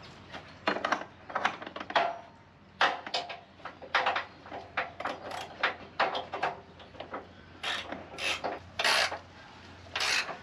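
A ratchet spanner worked back and forth in a run of short rasping strokes, about two a second, tightening the bolt of a canopy hold-down clamp under the tray.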